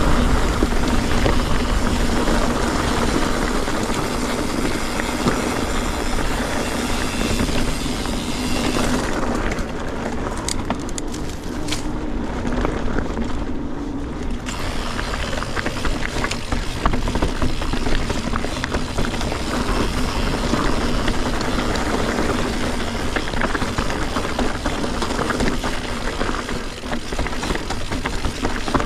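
Mountain bike being ridden over rough, rocky trail: wind buffeting the camera's microphone, with the Maxxis Forekaster tyres rolling over stones and the bike rattling. The hiss eases for a few seconds about a third of the way in, then picks up again.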